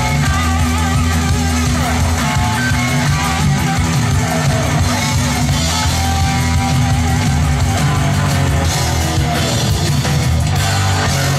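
Rock music playing back from tape on a Teac A-3340 four-track reel-to-reel deck.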